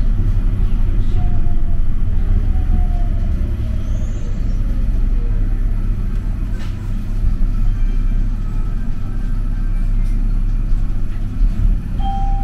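Mitsubishi Crystal Mover rubber-tyred light-rail car running along its guideway, heard as a steady low rumble inside the car. A faint whine falls in pitch over the first few seconds.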